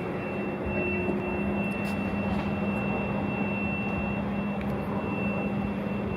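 Pickup truck engine running steadily at idle: an even hum with a thin, high, steady whine above it, cutting off abruptly at the end.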